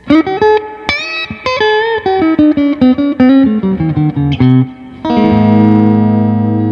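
Epiphone SL electric guitar played through an amp: a quick run of single plucked notes stepping down in pitch, then a chord struck about five seconds in and left ringing, slowly fading.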